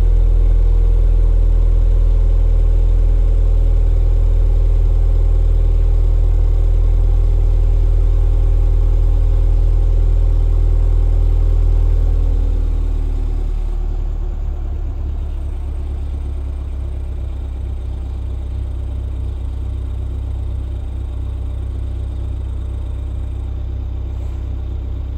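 Ford Fiesta ST engine idling at the stock exhaust tailpipes after a cold start. A steady, fairly loud fast idle drops about halfway through to a lower, quieter idle that then holds steady, as the cold-start high idle settles.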